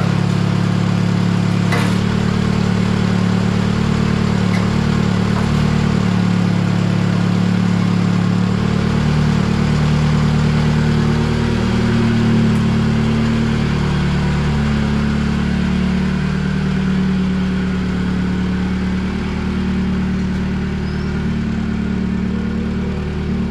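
Satoh S-550G tractor's four-cylinder gasoline engine running steadily just after being started again, its speed wavering slightly. The engine has been brought back to life after sitting forgotten. A single click about two seconds in.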